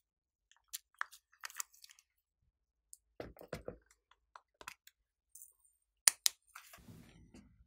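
Fingernails and hands tapping and clicking on a plastic slime container and a squishy star topping, with two sharp clicks about six seconds in, then a soft sticky squish of glossy slime near the end.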